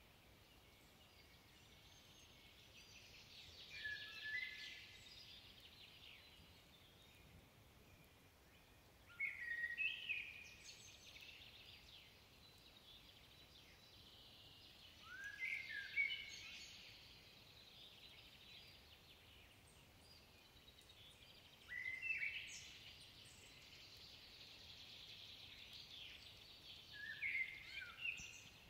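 Common blackbird singing faintly: five unhurried song phrases about six seconds apart, each a few lower whistled notes ending in a higher squeaky twitter.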